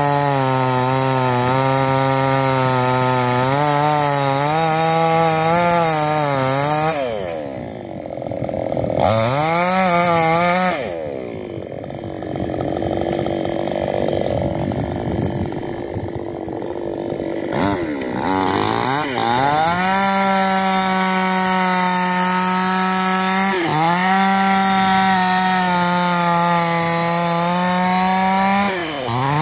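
Petrol chainsaw cutting through a coconut palm trunk at high revs. About a quarter of the way in the engine drops and runs low and uneven for several seconds, then revs back up and cuts steadily again, with two short dips in pitch near the end.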